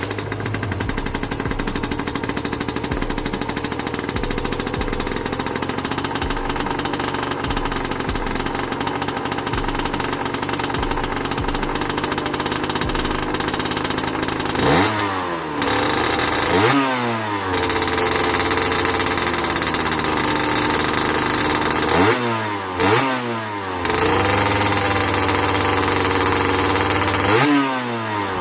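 Sherco 50cc two-stroke motocross bike running on its stock exhaust: it idles steadily for about half the time, then the throttle is blipped five times in quick short revs, two, then two, then one near the end, each rising in pitch and dropping back to idle.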